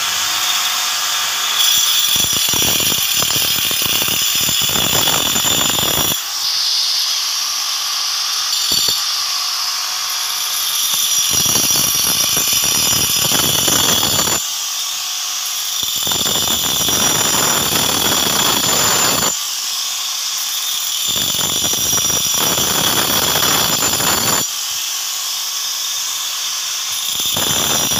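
Electric angle grinder cutting a groove into the grinding stone of a flour mill (atta chakki): a steady high motor whine throughout, with a gritty grinding noise that swells each time the disc bites into the stone and drops away for a second or more between passes, several times over.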